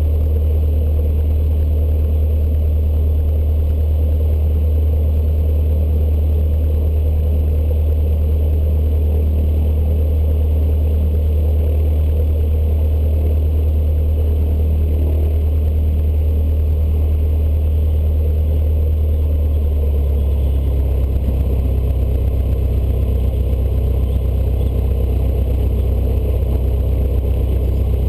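Cessna 152's four-cylinder Lycoming O-235 engine and propeller running at low taxi power, heard from inside the cockpit as a steady low drone. The drone gets slightly louder and fuller about twenty seconds in.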